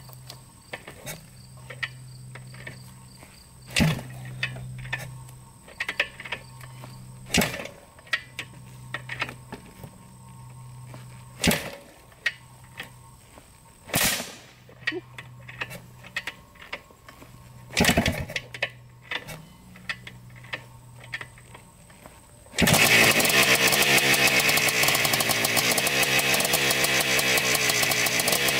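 A 1987 Yamaha YZ490's two-stroke single-cylinder engine being kick-started cold: several kicks, each a sharp clunk, then about 22 seconds in it fires and runs loudly, its pitch rising and falling with the throttle as it warms up.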